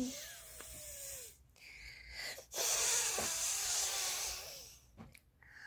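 A young child making breathy, hissing vocal noises in three bursts, the last and loudest running for about two and a half seconds.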